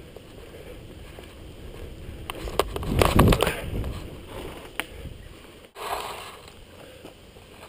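Mountain bike rolling over a dirt forest trail: tyre noise and a low rumble with scattered sharp knocks, and a loud jolt of rumble and clatter about three seconds in. The sound drops out for an instant just before six seconds, then the riding noise picks up again.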